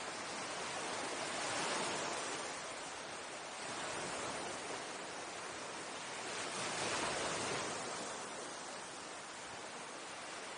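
Small Baltic Sea waves breaking and washing up on a sandy beach: a steady hiss of surf that swells twice, about a second and a half in and again about seven seconds in.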